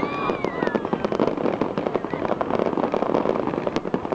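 Fireworks going off: a dense, rapid, continuous crackling and popping of many small bursts.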